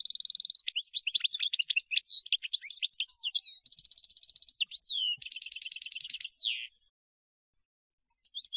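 European goldfinch singing: quick twittering notes mixed with fast buzzing trills, ending in a falling note, then a short pause before the song starts again near the end.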